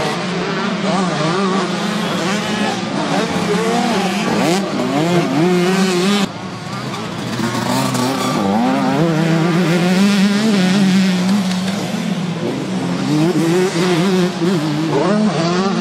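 Several 125cc two-stroke motocross bike engines revving up and down as they ride the track, their pitches rising and falling over one another. The level drops suddenly about six seconds in, then builds again.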